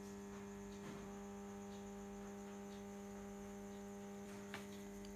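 Steady electrical mains hum, with a faint click about a second in and another near the end.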